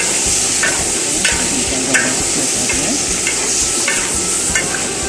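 Prawns sizzling in hot oil in a large metal wok, stirred with a metal spatula that scrapes against the wok about every half second over a steady frying hiss.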